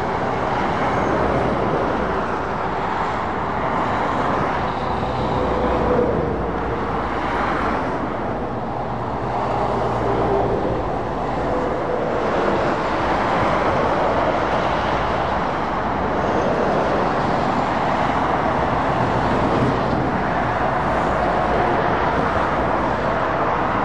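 Continuous motorway traffic noise from lorries and cars passing close by: a steady rush of tyres on the road over the low drone of engines, swelling slightly as individual vehicles go by.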